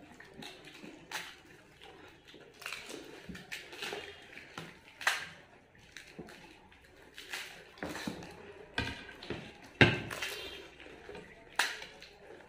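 Several people eating fuchka (pani puri): irregular crunches and cracks as the crisp puffed shells are broken and bitten, with chewing and small clinks of dishes. The sharpest crack comes about ten seconds in.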